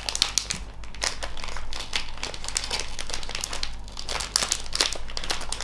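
Clear plastic bag crinkling as it is handled and opened, a dense irregular run of small crackles.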